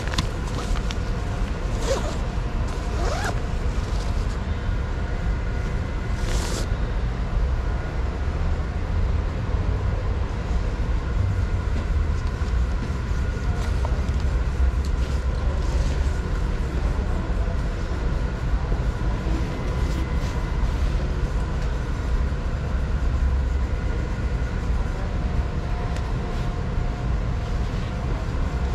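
Zipper of a small fabric bag being worked a few times in the first seconds, a quick rasping pull each time, over a steady low rumble that carries on throughout.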